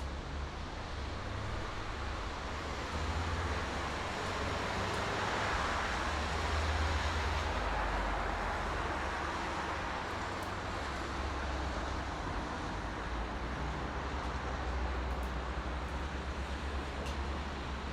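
Highway traffic at night: a steady low rumble of vehicles with tyre noise swelling as a car passes a few seconds in, then easing back.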